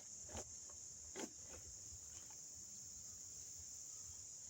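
A steady, high-pitched drone of insects such as crickets, with two short soft rustles in the first second and a half.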